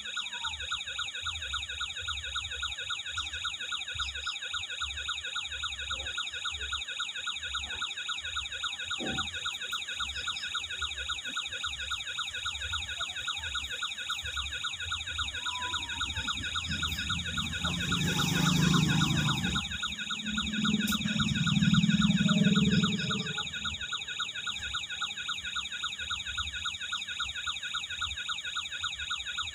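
Toy remote-control truck's electronic siren sound effect, a fast-repeating high warble that runs on steadily. About two-thirds of the way in, a louder low rumble swells twice over several seconds and fades.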